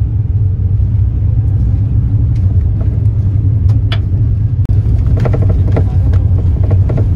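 Boat engine running steadily: a loud, even low drone.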